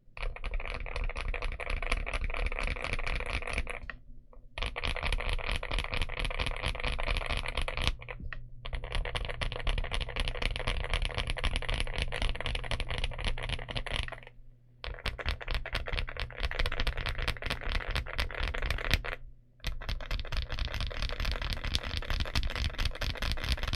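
Fast typing on a mechanical keyboard fitted with linear frankenswitches, a Gateron Yellow stem in a Gateron Smoothie housing and spring, giving a slightly deeper, creamy key sound. The typing stops briefly four times.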